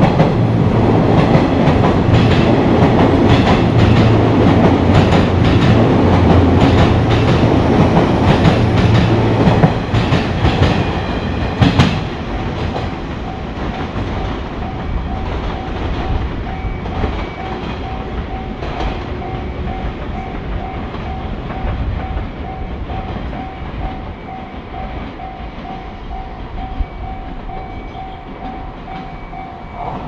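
A train passing close by, rumbling with its wheels clacking over the rail joints, for about the first ten seconds, then fading. After it fades, a Japanese level-crossing warning bell rings in a steady repeated "kan-kan" pattern as another train approaches.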